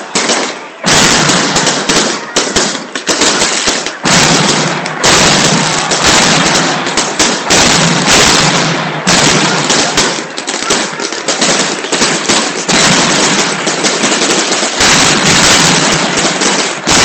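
Firecrackers and fireworks going off in a dense, almost unbroken crackle of rapid bangs and pops, dipping for a moment a few times.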